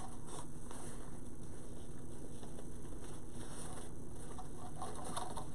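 Faint crinkling rustle of wired ribbon being unrolled from its spool and looped onto a bow maker, over a steady low background hum.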